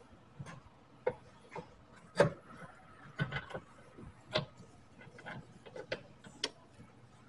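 Irregular metal clicks and knocks, about a dozen scattered taps with the loudest about two seconds in and again past four seconds. They come from a hand tool working at the steel front spindle and suspension of a VW Karmann Ghia.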